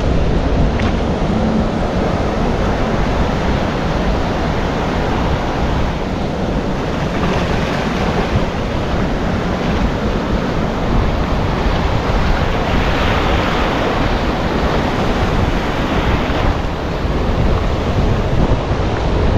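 Surf breaking and washing up the beach, with wind buffeting the microphone in a heavy low rumble.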